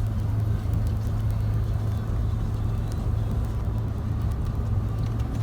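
Steady low drone of a car driving, heard from inside the cabin: engine and tyre noise on the road.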